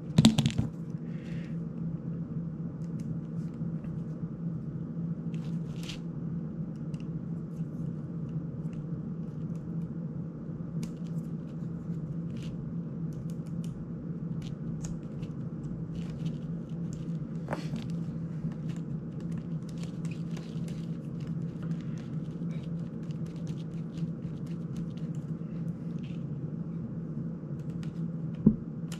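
Faint, scattered clicks and ticks of a small precision screwdriver and the plastic frame of a GEPRC CineLog 35 drone being handled while screws are undone, with one sharper click near the end. A steady low hum of room tone lies under them.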